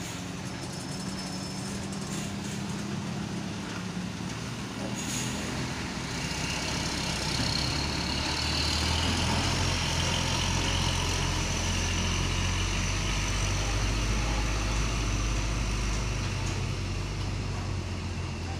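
Heavy diesel truck engine pulling hard under load through a tight hairpin bend, a low rumble that swells and grows louder about six seconds in and holds, with a high whine over it. A short hiss comes about five seconds in.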